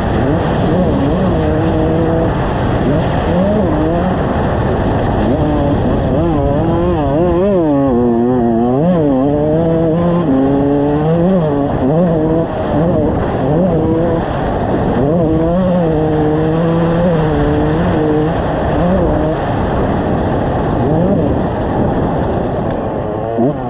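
2001 Kawasaki KX125 two-stroke single-cylinder motocross engine being ridden hard, its pitch climbing and dropping over and over as the rider twists the throttle, shifts and backs off through the track's corners and jumps.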